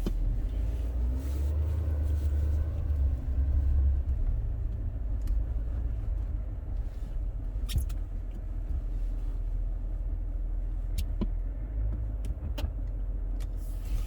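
Pickup truck running with a steady low rumble, with a few sharp clicks.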